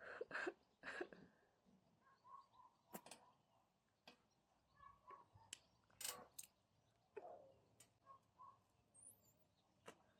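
Close, quiet sounds of a woman smoking a cigarette: two short breathy bursts right at the start, then scattered faint clicks and lip sounds.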